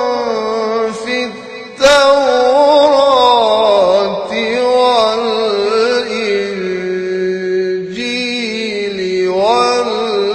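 A man's voice chanting a Quranic recitation in Arabic at a microphone. He holds long, wavering notes that start loudly about two seconds in and slowly fall in pitch, then break off briefly and rise again near the end.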